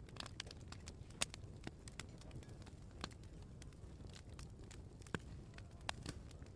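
Open wood fire crackling, with irregular sharp pops over a low steady rumble; two pops, about a second in and near five seconds in, stand out louder.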